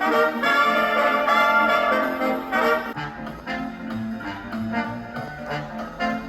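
Brass-band jazz record playing through a suitcase record player's built-in speaker, picked up by microphones about four feet away in the room. A loud trumpet-and-trombone passage eases to a softer one about halfway through.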